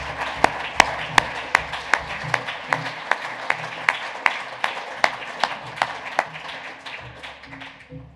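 Audience applauding, with one pair of hands close by clapping loudly and evenly at about two and a half claps a second. The applause dies away near the end.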